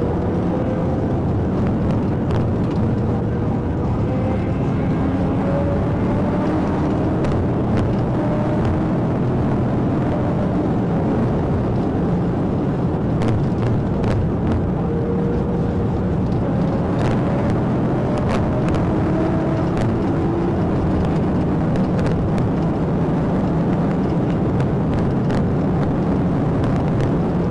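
Dodge Charger patrol car driving fast, heard from inside the cabin: steady engine and road noise, with the engine's pitch slowly rising and falling as the car speeds up and slows, and a few scattered clicks.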